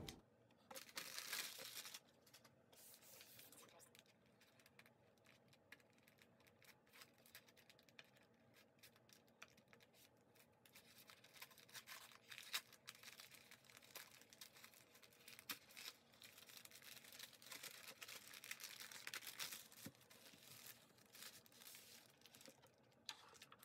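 Faint rustling and tearing of brown kraft-paper and foam packing as it is unwrapped by hand, with a few small sharp clicks.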